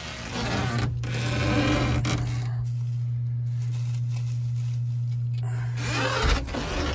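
Wood-shaving bedding in a chicken nest box rustling and scraping as a hand gathers a few eggs. The rustling is heaviest in the first couple of seconds and again near the end, over a steady low hum.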